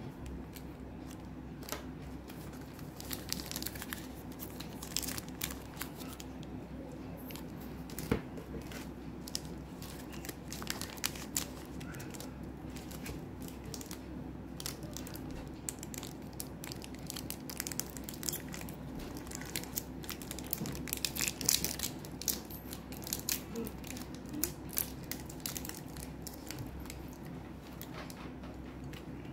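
Plastic chocolate-bar wrappers crinkling and crackling as hands handle them and tear one open, with a dense run of sharp crackles around the middle, over a steady low hum.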